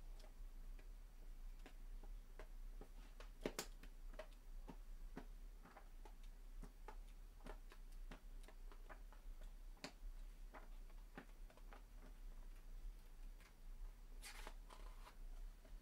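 Pages of a thick paper manual being flipped over one after another, each page giving a faint flick, at an uneven pace. A short, louder rustle of paper comes near the end.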